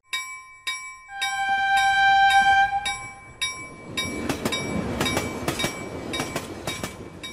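Railroad sounds: a bell ringing about twice a second and a train horn blast held for about two seconds starting a second in. After that, a train runs past with its wheels clacking in a steady rhythm.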